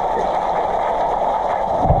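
Steady muffled rushing of pool water heard through an underwater camera housing, with a short low thud near the end.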